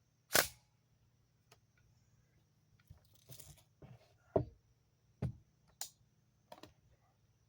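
10mm cartridges being pressed one at a time into a pistol magazine: a series of sharp separate clicks, with a short rustle of handling about three seconds in.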